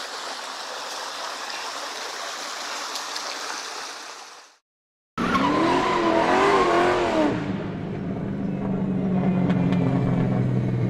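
A steady hiss that fades out after about four seconds, then a brief silence. After that a sports car engine revs, its pitch swinging up and down, and then settles into a steady drone.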